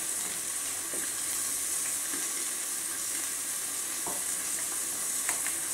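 Steady sizzling of fish grilling in a covered frying pan on a gas stove, with a few faint clicks of a metal spoon against a glass jar.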